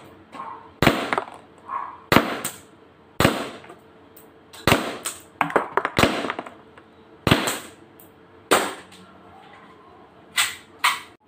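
WE M1911 gas blowback airsoft pistol firing single shots of 0.23 g BBs, a sharp crack about every one to one and a half seconds, each the gas report with the slide cycling. Two fainter cracks follow near the end.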